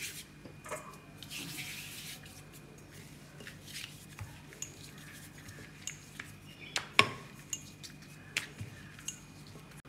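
Stainless-steel rolling pin rolling out a small round of maida dough on a silicone mat: soft rubbing and rolling with scattered light clicks and taps of the metal pin, the sharpest about seven seconds in.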